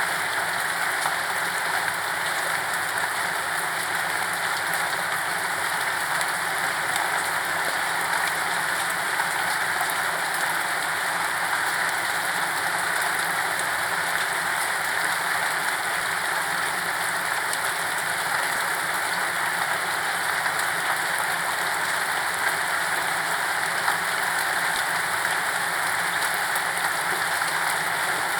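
Steady, unbroken rain falling and pattering on a surface, an even hiss of many small drops without thunder.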